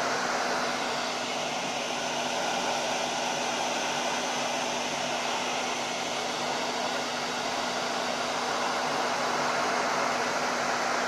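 Hair dryer blowing steadily, with a constant hum under the rush of air, heating the edge of a laptop screen to soften the glue that holds the display.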